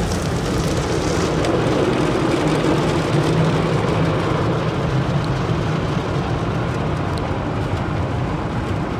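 Automatic car wash heard from inside the car's cabin: foam and water spraying against the windshield over the wash machinery, a loud, steady rushing noise with a low rumble.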